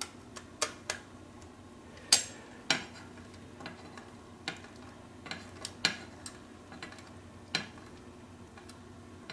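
Hand screwdriver turning a small self-tapping screw through an antenna's VHF dipole element into its bracket: irregular light metallic clicks and scrapes, the loudest about two seconds in.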